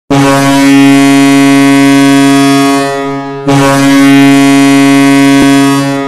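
Kölner Haie ice hockey goal horn blowing two long, steady blasts, the second starting about three and a half seconds in.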